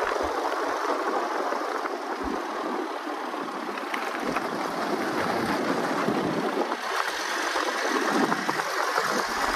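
Steady road and wind noise from the 1989 Dodge half-ton pickup driving along, an even rush without a distinct engine note.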